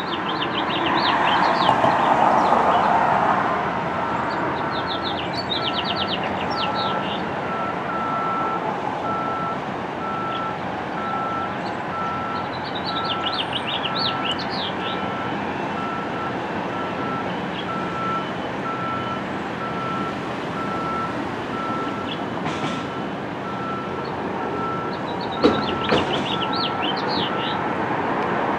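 A construction vehicle's reversing alarm beeping at a steady, even pace, starting a few seconds in, over a constant background of vehicle noise. Birds chirp in short quick trills several times.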